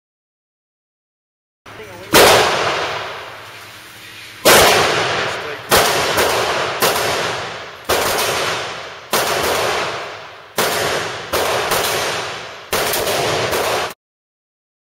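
About ten handgun shots fired one at a time at an indoor range, each a sharp crack followed by a long echo off the range walls. They begin about two seconds in, come roughly every one to two seconds, and stop shortly before the end.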